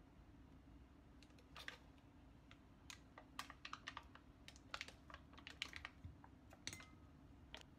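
Knife slicing through a foil-wrapped block of butter: quiet, irregular clicks and crinkles of the foil wrapper, several a second, starting about a second in.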